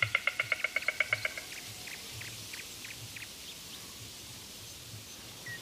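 White stork clattering its bill: a fast, even run of hollow clacks, about ten a second, that dies away after a second and a half, followed by a few faint scattered clicks.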